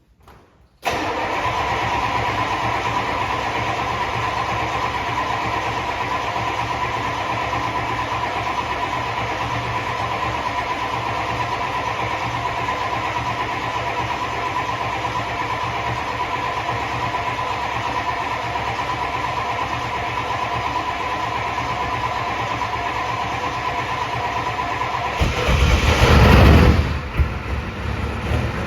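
Turbocharged indirect-injection (IDI) diesel truck engine cutting in abruptly and running steadily, with a steady whine over the engine sound. Near the end it is revved up once, briefly louder, then settles back.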